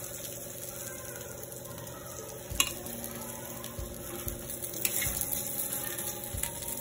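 Steel spatula scraping and clicking on an iron tawa as fried fish is lifted off, with faint oil sizzling underneath. One sharp clack of metal on the pan comes about two and a half seconds in, and a lighter one near five seconds.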